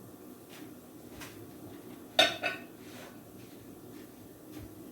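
Cookware clinking: a couple of faint taps, then two sharp metal-on-pan knocks a little over two seconds in, over a low kitchen background.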